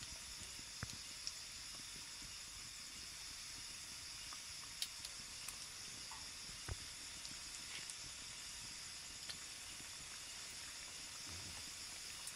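Gaja dough pieces deep-frying in hot oil in a black iron kadai: a faint, steady sizzle with a few sharp pops scattered through it.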